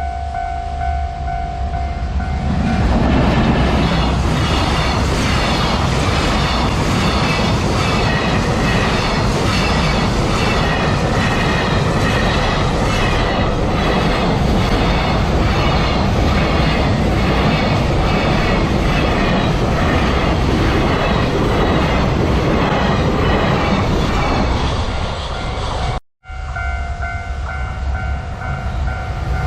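A level crossing warning bell rings in steady tones. About two and a half seconds in, a freight train hauled by a JR Freight EF210 electric locomotive passes close by with loud, continuous wheel clatter that drowns out the bell. Near the end the sound breaks off for an instant, and the crossing bell is heard ringing again.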